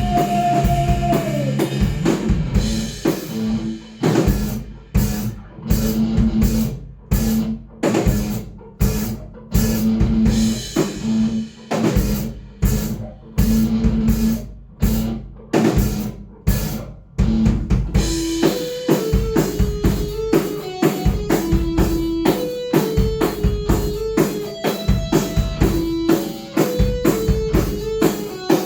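Alternative-metal band playing an instrumental passage on drum kit, bass and guitar. The band plays stop-start hits separated by short gaps, then about 18 seconds in breaks into a steady, driving riff with a repeating guitar figure over the drums.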